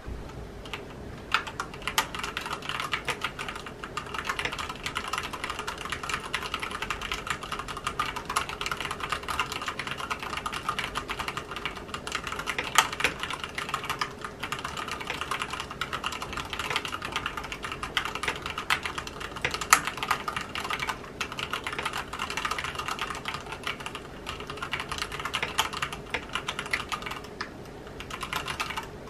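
Rapid, continuous typing on a mechanical keyboard: a dense stream of key clacks that starts about a second in and pauses briefly near the end.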